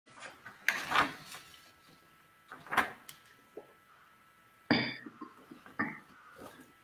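A handful of brief knocks and bumps over low room tone, the sharpest one about two-thirds of the way through.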